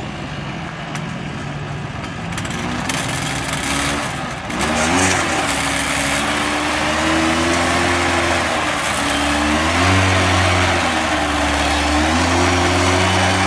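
Kawasaki TH48 two-stroke engine on an Iseki walk-behind four-blade mulching mower. It is idling, then opens up with the throttle about four and a half seconds in and runs louder. Its speed dips and climbs back several times as the throttle is worked.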